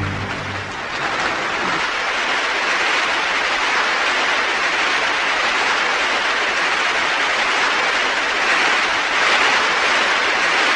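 Audience applauding steadily after a ballet variation, swelling a little near the end.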